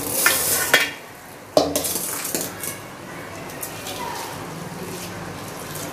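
Steel spoon clinking and scraping against a steel pan and plate as thick cooked rice-flour dough is scooped out and spread flat. There are a few sharp clinks in the first two seconds, then softer scraping.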